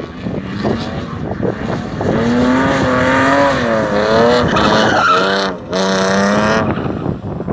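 BMW E36 3 Series drift car running at high revs while sliding, the engine note wavering up and down with the throttle over the hiss and squeal of the spinning rear tyres. The engine cuts out briefly about five and a half seconds in, picks up again, then falls away near the end.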